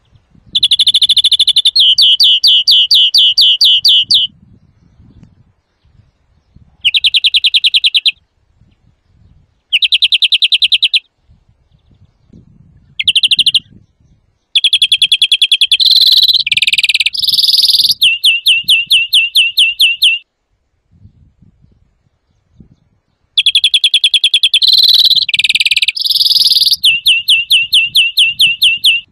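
European greenfinch singing loudly: six phrases of fast trills, from under a second to about five seconds long, with short pauses between.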